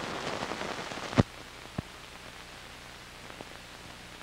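Surface noise of an old film soundtrack: dense crackling and popping ending in one loud pop about a second in, then steady hiss with a low hum and a couple of faint clicks.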